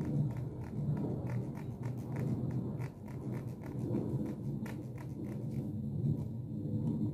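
Plastic comb teeth scratched right against a microphone, a quick even run of rasping strokes about three a second, over a low rumble from the comb and hand rubbing the mic.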